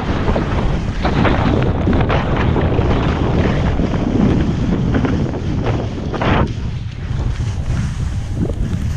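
Heavy wind buffeting the microphone during a fast run down a ski slope, over the hiss and scrape of edges sliding on snow. The hiss eases about six and a half seconds in.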